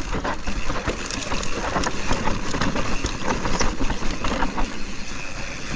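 Mountain bike rolling down a rocky, rutted dirt trail: a steady rumble of tyres over rock and dirt, with many quick rattles and clicks from the bike over the chunky ground.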